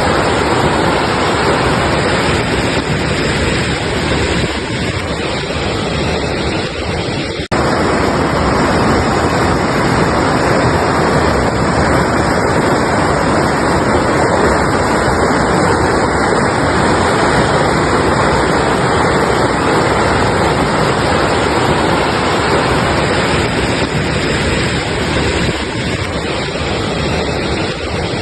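Mountain river rushing steadily over rocks, loud and unbroken except for a momentary dropout about seven seconds in.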